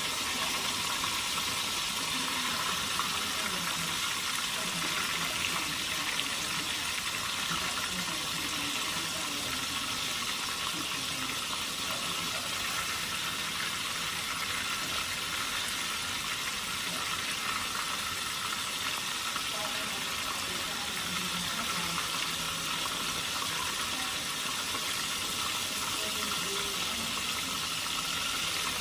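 White snapper frying in hot oil in a skillet, a steady, even sizzle.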